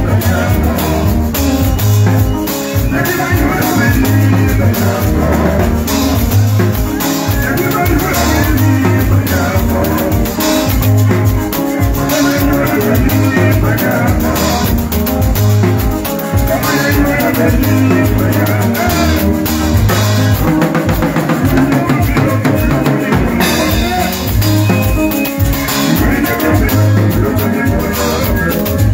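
Live band music with drum kit and guitar over a steady, pulsing bass beat.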